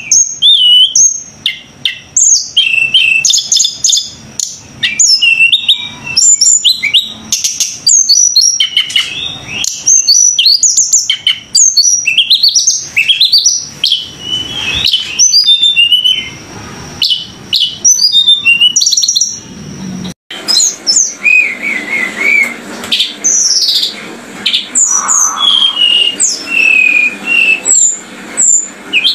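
Bird chirping and twittering rapidly and continuously in quick rising and falling notes, with a brief break about twenty seconds in before the chirping carries on.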